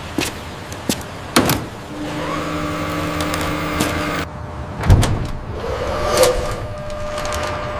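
Machine sounds: scattered clicks, then a steady motor hum about two seconds in that cuts off abruptly, followed by a heavy thump.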